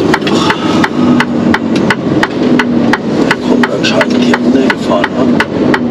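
Inside a heavy truck's cab while driving: a steady engine hum, with sharp, regular clicking about three times a second on top.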